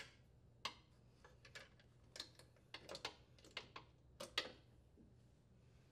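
Light metallic clicks and taps of a steel coil spring being hooked onto a mower's transmission and its bracket. One sharper click at the start, then scattered fainter clicks about every half second to a second, ending a little after four seconds.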